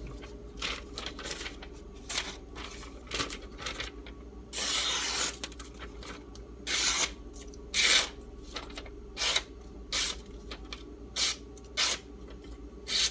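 A D2 steel knife blade drawn across a fine 3000-grit Arkansas sharpening stone with light hand pressure. It gives about a dozen separate short rasping strokes, with one longer pass a little before halfway. These are light finishing passes to refine the edge's apex on a stone that is drying out.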